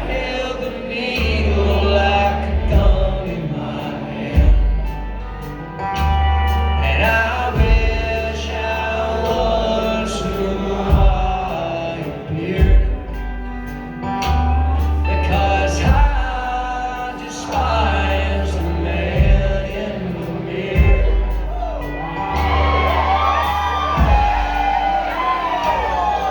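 Live acoustic country band playing a slow song: long, deep bass notes under a sliding melody line that bends most strongly near the end.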